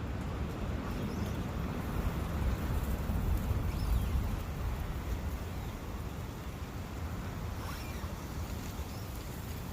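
Forest ambience of wind and a flowing brook: a steady rushing with a deep rumble that swells about two to four seconds in, then eases.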